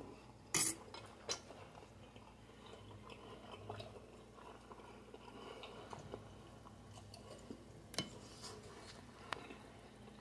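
Metal cutlery clicking against a ceramic plate a few times: one sharp click just after the start, a lighter one a moment later and faint taps near the end, with quiet handling in between.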